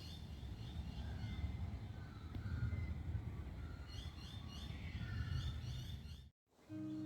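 Birds chirping outdoors, with quick repeated high notes and a few lower whistled phrases, over a steady low rumble of wind or distant traffic. It cuts off suddenly about six seconds in, and music starts just before the end.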